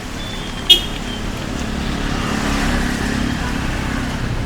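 Road traffic: a motor vehicle passes, its engine and tyre noise swelling through the middle and then easing, with one short high beep just under a second in.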